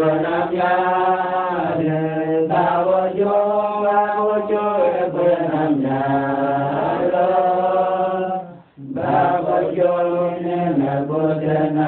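Voices singing a slow, chant-like hymn, the melody moving above a held low note, with a brief break for breath about nine seconds in.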